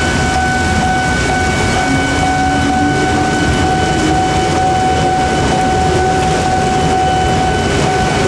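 Heavy rain hissing at a railway level crossing, with the crossing's warning alarm sounding as one steady high-pitched tone and a train rumbling past slowly.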